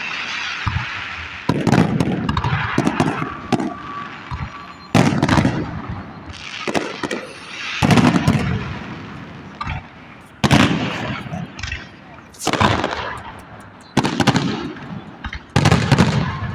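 Fireworks display: about seven loud aerial shell bursts, one every two to three seconds, each bang followed by a crackling, rumbling tail.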